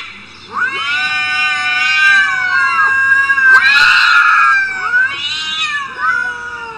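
Two cats caterwauling at each other in an aggressive standoff: a long drawn-out yowl, a louder one about three and a half seconds in, then shorter yowls that drop in pitch.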